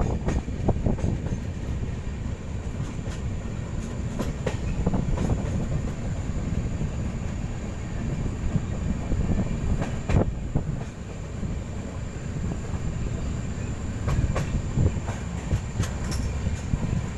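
Passenger train running along the track, heard from the side of a moving coach: a steady low rumble of wheels on rail with scattered sharp clacks.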